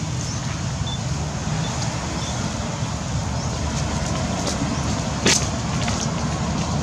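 Steady low outdoor background rumble, with one sharp click about five seconds in.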